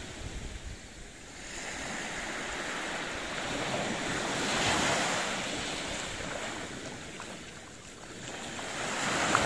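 Waves washing onto a sandy beach, the wash swelling and fading slowly, loudest about halfway through and again near the end.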